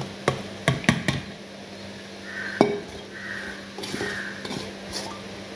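Stainless-steel plate and mixer-grinder jar knocking together as tamarind is tipped and pushed into the jar: a few sharp clinks in the first second, another about two and a half seconds in, with soft scraping between.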